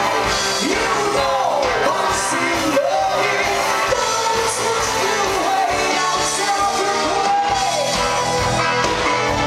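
Live rock band playing, with a singer belting and yelling into a microphone over drums.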